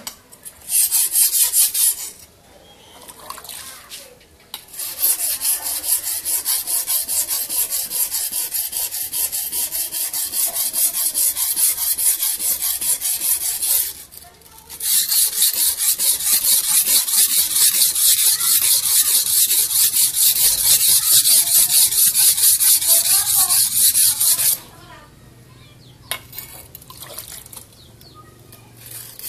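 Golok (machete) blade being sharpened by hand on a whetstone: rapid back-and-forth grinding strokes of steel on stone in long runs, with a short burst about a second in, a brief pause about 14 seconds in, and a stop about 25 seconds in.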